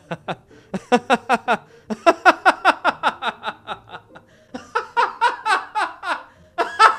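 A man laughing hard: long runs of quick "ha" pulses, about five a second, broken by short breaths.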